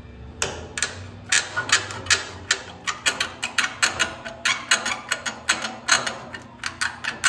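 Steel edge wire being worked out of the rolled edge of a 1932 Ford fender with locking pliers: an irregular run of sharp metallic clicks and scrapes, starting about half a second in.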